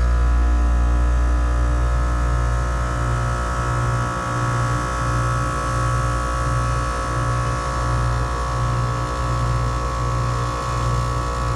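Bard wall-mount air conditioner running in cool mode: a steady compressor and fan hum with several held tones, over a low drone that throbs a little more than once a second.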